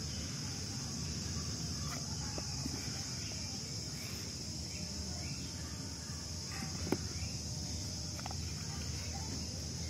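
Steady high-pitched drone of an insect chorus, with one sharp click about seven seconds in.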